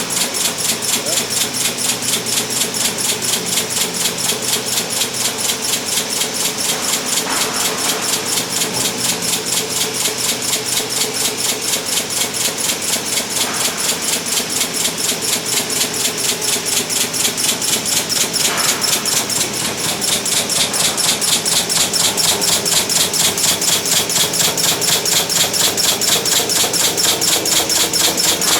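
Resistance welding machine spot-welding a stainless steel sink in a rapid series of welds, heard as a fast, even pulsing over a steady electrical hum.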